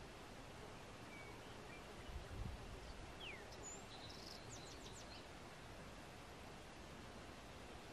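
Faint outdoor mountain ambience: a steady low hiss with a few short, high bird chirps in the middle, one of them sliding downward. A brief low thump comes about two and a half seconds in.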